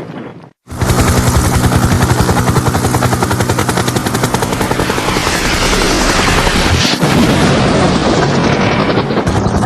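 Helicopter flying, its rotor blades chopping rapidly over the engine noise; the sound cuts in suddenly after a short silence about half a second in.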